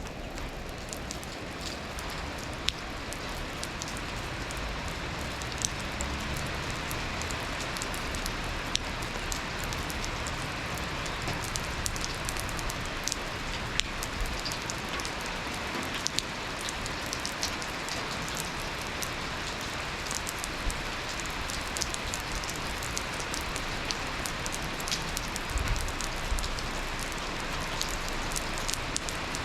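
Steady rain falling, a constant hiss, with many sharp ticks of drops hitting hard surfaces and a louder drip every few seconds.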